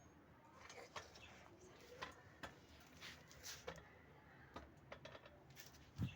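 Faint scattered clicks and ticks, a dozen or so irregularly spaced, with a soft low thump near the end.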